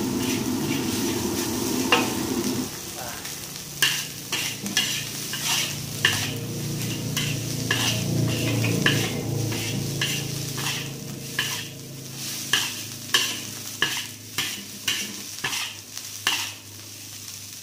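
A metal spatula scraping and knocking against a wok while the food in it sizzles, at about two strokes a second. A low steady rumble under the frying cuts off about three seconds in.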